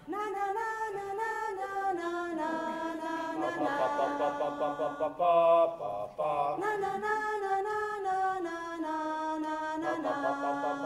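Several voices singing together without instruments, holding long wordless notes in harmony that shift to a new chord every second or two, with a brief louder, higher chord about halfway through.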